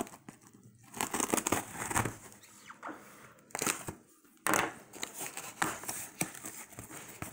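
A cardboard box being cut and torn open with a serrated knife and its flaps pulled and handled: irregular scraping, tearing and rustling of cardboard in short spells, with a sharper knock or scrape about four and a half seconds in.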